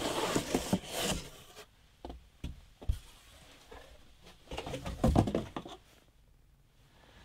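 Cardboard box being handled and cleared away: scraping and rustling at the start and again about five seconds in, with a few soft knocks in between.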